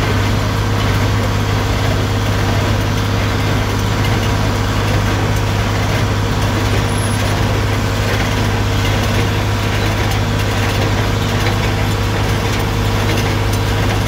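Tractor engine running steadily under load with a strong low hum, driving a John Deere 327 small square baler, heard from the tractor seat.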